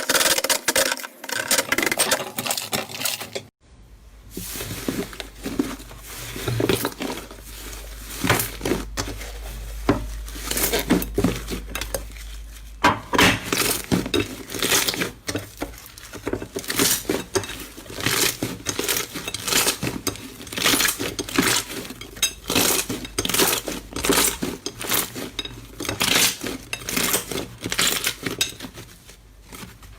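Slime being squished and pressed by hand, making a dense run of irregular sticky clicks and crackles, with a brief pause about three and a half seconds in.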